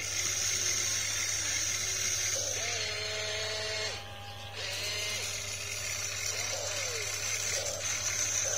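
An RC hydraulic excavator's electric pump and motors whine as the boom, arm and turntable move, the pitch rising and falling with each motion. A steady high whine drops out briefly about four seconds in.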